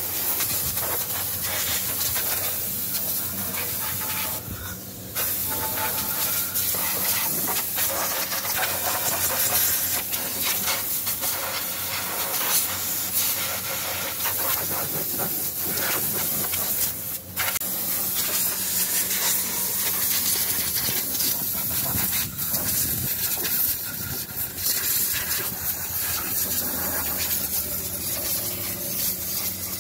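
Compressed-air blow gun with a long nozzle hissing steadily as it blows dust out of an electric forklift's controller compartment and drive motor, with a few brief breaks where the air is cut off.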